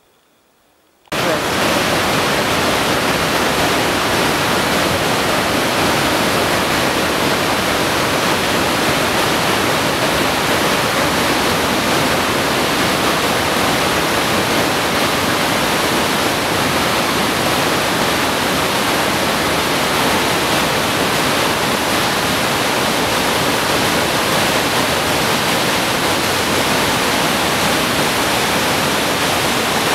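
Rushing water of a mountain waterfall and rocky stream: a loud, steady rush of white water that cuts in suddenly about a second in, after near silence.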